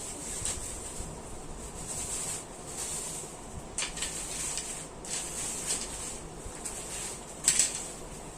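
Light handling noises over a steady hiss: a few short clicks and knocks, about four spread out, from a fishing rod being handled.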